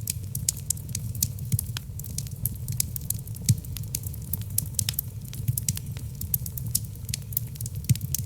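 Wood logs burning in a fireplace: a steady low rumble of flames under many sharp crackles and pops, several a second, with a louder pop about three and a half seconds in and another near the end.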